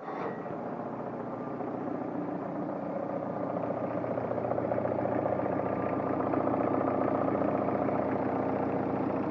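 Toyota 2C-T turbodiesel four-cylinder idling just after starting, with a fine rapid clatter. The owner hears an unexplained knock coming from somewhere in the top of the engine and cannot locate it.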